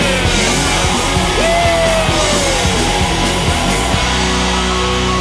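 Loud rock band music with an electric guitar solo, its notes bending up and down in pitch; about four seconds in a chord is held steady.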